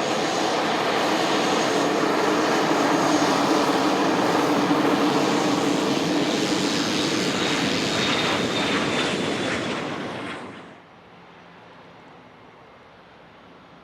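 Business jet passing close by, its engines loud, with a high whine that falls in pitch in the last few seconds. The noise cuts off suddenly about eleven seconds in, leaving only a faint steady hum.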